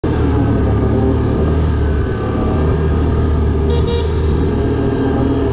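ATV engine running steadily under way, with a low drone and a hiss over it. A brief two-part horn toot comes about two-thirds of the way through.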